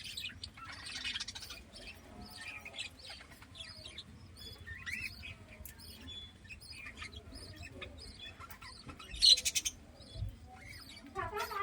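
Budgerigar chattering in short, scattered chirps and warbles, with one loud, harsh, rasping call about nine seconds in.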